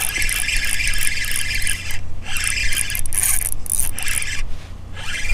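Spinning reel whirring in high-pitched bursts as a hooked small bass is played on the line, with short breaks about two seconds in and again near the end.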